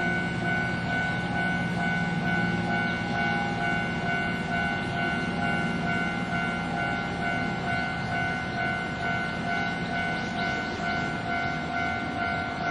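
Japanese level-crossing alarm ringing its steady electronic clang at full volume while a train runs past, a steady rumble of wheels on the rails beneath it.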